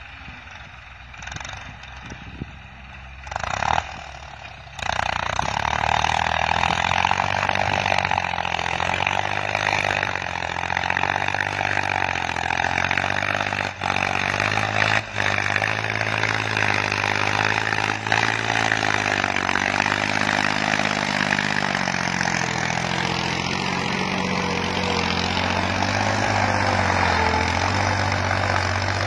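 New Holland tractor's diesel engine running hard under load while it pulls a disc plough through the soil, its pitch wavering slightly up and down. The engine comes in loud about five seconds in, after a quieter start.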